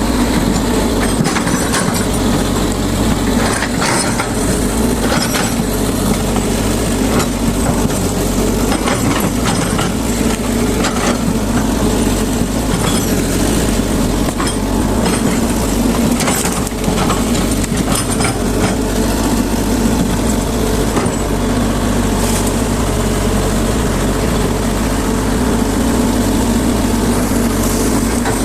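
Excavator's diesel engine running steadily, with scattered sharp cracks and knocks from the work of clearing brush and branches.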